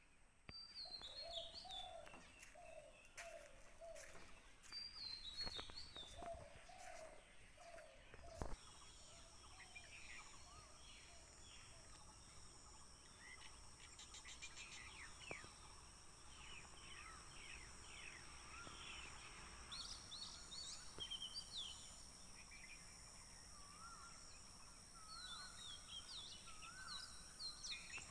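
Faint morning birdsong from several birds. A repeated low, two-note call sounds over the first eight seconds, then many quick high chirps and trills follow, with a steady high-pitched drone joining about eight seconds in.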